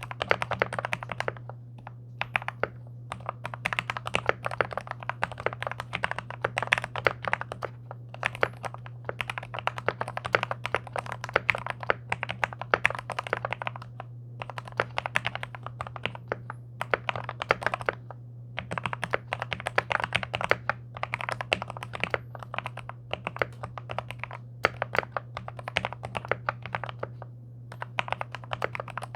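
Typing on a NextTime 75 gasket-mount mechanical keyboard with MOMOKA Frog switches lubed with Krytox 205g0, the board fitted with neoprene foam and tape. The keystrokes come in fast, continuous runs, broken by brief pauses every few seconds. A steady low hum runs underneath.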